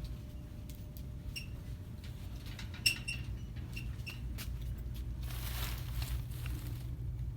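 Shop ambience with a steady low hum, over which merchandise is handled: scattered light clicks, a sharp metallic clink with a brief ring about three seconds in, and a rustle of packaging lasting about a second near the end.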